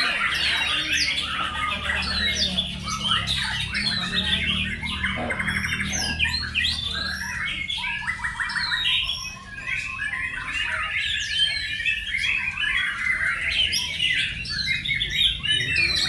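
Many caged white-rumped shamas singing at once: a dense, overlapping chorus of loud whistles, rapid trills and harsh notes.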